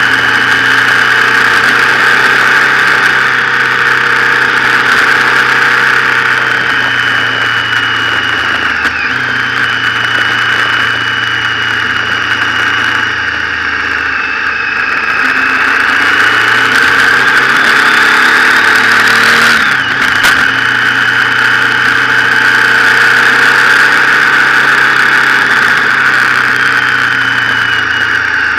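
Motorcycle engine running under way, its pitch falling and rising several times, over a steady rushing wind and road noise. A sharp click about two-thirds of the way through.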